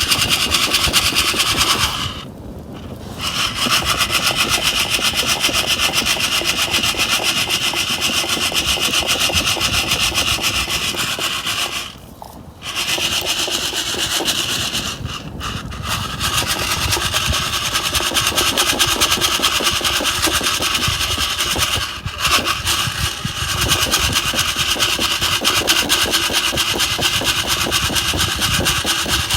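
Coffee beans roasting in a metal Sierra cup, shaken without a break so they rattle and scrape against the metal. The shaking stops briefly a few times, about two seconds in, near the middle and later on.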